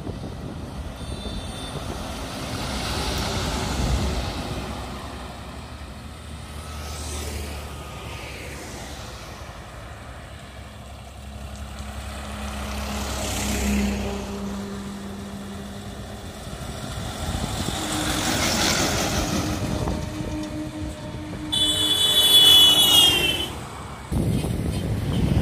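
Loaded trucks and cars passing on a highway one after another, each rumble swelling and fading as it goes by. Near the end, a loud, high-pitched tone with a slightly falling pitch sounds for about two seconds.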